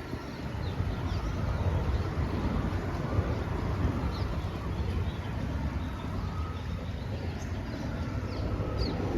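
Steady low rumble of interstate traffic on the bridge overhead mixed with the rush of the river, with a few short, high, falling chirps.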